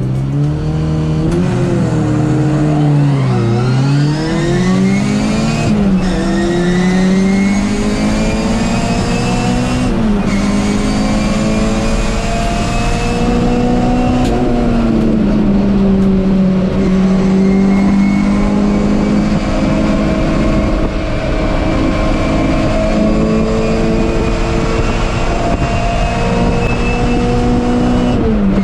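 MG Metro race car's four-cylinder engine, heard from inside the cabin, accelerating hard. The revs climb and drop back sharply at upshifts about six and ten seconds in, then ease off and run steadier at high revs with small rises and falls.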